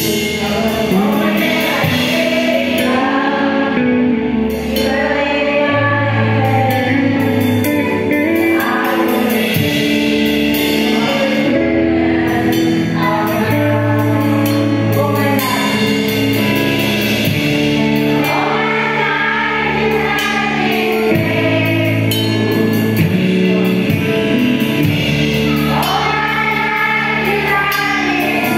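Christian worship song: many voices singing together over instrumental backing with sustained bass notes, loud and unbroken.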